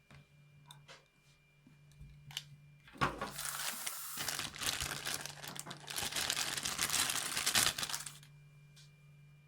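Packaging being handled: crinkling and rustling that starts with a sharp crackle about three seconds in and goes on for about five seconds, after a few faint clicks.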